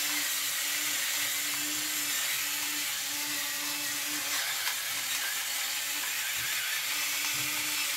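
Electric pepper mill whirring as it grinds pepper and coriander over sliced tomatoes. It is a steady motor hum with a grinding hiss, with brief breaks as it is tilted.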